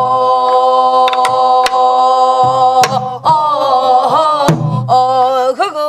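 Women singing a Namdo folk song in Korean traditional style, holding a long note for about three seconds that then wavers and bends, with strokes on a sori-buk barrel drum.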